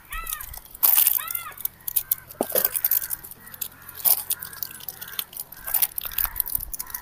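Crow cawing: two short arched calls in quick succession near the start. Scattered sharp crackling and rustling clicks run through the rest.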